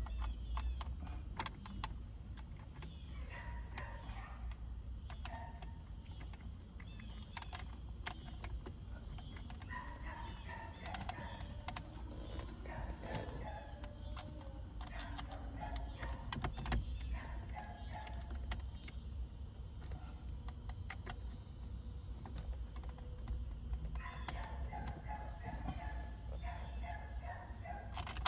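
A rooster crowing several times, with scattered light clicks of hand tools as screws are run in.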